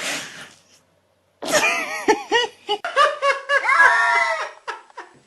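A short breathy huff, then a string of rapid, high-pitched laugh-like calls that bend up and down in pitch.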